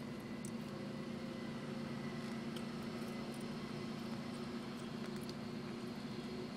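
A car running at a steady speed: an even, low engine and road hum, with a few faint ticks.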